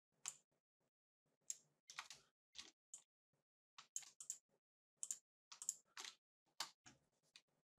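Faint, irregular clicks of a computer mouse and keyboard, about fifteen in all, while working in drawing software.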